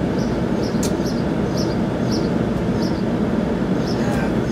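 Steady low rumble of vehicle and road noise, with faint high chirps repeating about twice a second.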